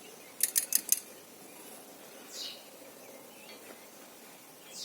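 A quick run of four or five sharp metallic clicks about half a second in, from a torque wrench's ratchet as a cylinder head bolt on a Honda V6 is tightened. Two faint short falling chirps follow later.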